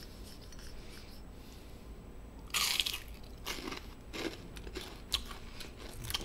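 A person biting into and chewing crunchy Korean fried food (twigim): one loud crunch about two and a half seconds in, then a run of smaller crunches and clicks as it is chewed.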